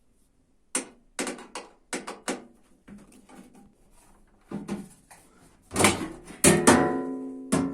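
A series of knocks and clunks from parts of a washing machine being handled during disassembly, several quick ones early on and heavier ones later. The loudest, late on, leaves a metallic ring that dies away.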